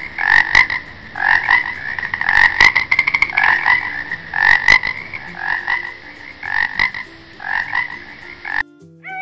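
Frog croaking, call after call, with a fast rattling run of clicks about two and a half seconds in; the croaking stops abruptly shortly before the end.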